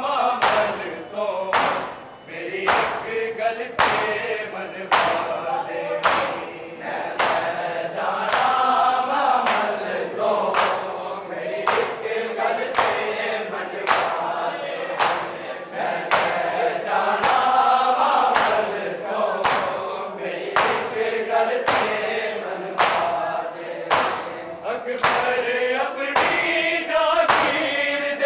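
A crowd of men chanting a mourning noha in chorus while beating their bare chests in unison (matam). The hand-slaps land together in a steady beat of about two a second.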